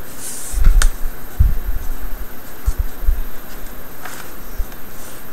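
Plastic laptop screen bezel being pressed by hand onto the LCD panel: irregular dull thumps with a sharp plastic click about a second in and a few faint clicks later, as the bezel is not snapping into place.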